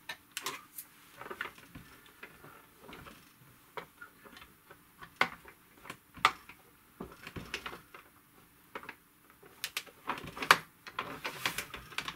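Irregular light clicks and taps of plastic parts being handled as the flip-up LCD panel of a TRS-80 Model 200 laptop is worked back onto its case, with a few sharper knocks in the second half.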